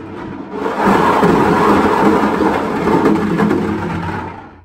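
Golf balls tumbling and rattling inside a large clear plastic carboy as it is swirled round, a dense clatter that swells about a second in and dies away near the end.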